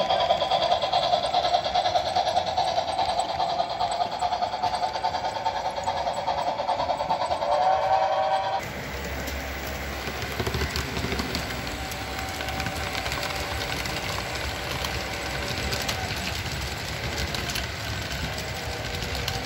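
Model trains running on a layout. For the first eight seconds the passing model steam locomotive gives a steady pitched tone with overtones. After an abrupt cut, a model diesel passenger train rolls by, its wheels making a low rumble and fine clicking on the track.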